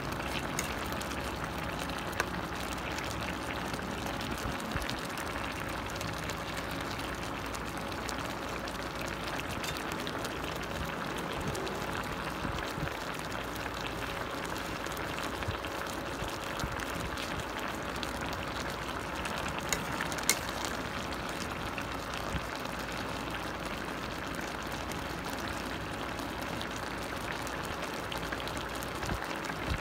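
Chicken adobo sauce boiling steadily in an uncovered stainless-steel pot, reducing down to a thick, honey-like glaze. A few sharp clicks sound now and then.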